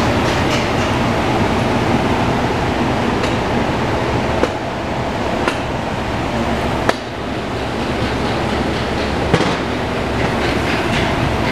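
Steady mechanical running noise with a low hum, broken by a few sharp clicks.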